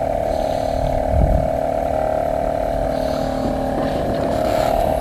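Boat engine running steadily, a constant droning hum with a low rumble underneath.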